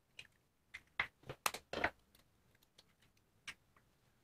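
Eggs being cracked open by hand over a mound of flour: a quick run of short, faint shell clicks and taps in the first two seconds, and one more tap later.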